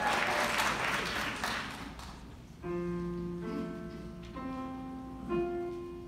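Audience applause dying away, then a grand piano plays sustained chords: the first about two and a half seconds in, then two more over the next three seconds.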